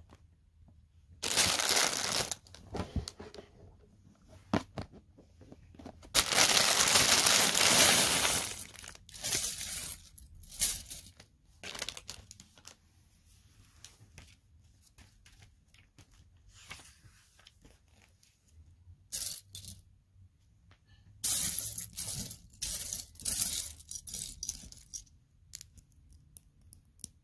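A plastic bag of Lego bricks is torn open and crinkled in several bursts, and loose plastic pieces clatter and click as they are poured out and sorted by hand.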